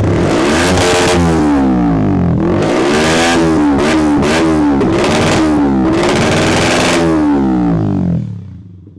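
Yamaha YZF-R125's 125 cc single-cylinder four-stroke engine, breathing through a Dominator exhaust with its dB killer removed, revved repeatedly in quick blips that rise and fall. It has a much deeper sound, and drops back to idle near the end.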